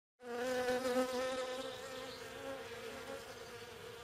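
Honeybees buzzing: a steady, even-pitched hum with overtones that starts abruptly and slowly grows quieter.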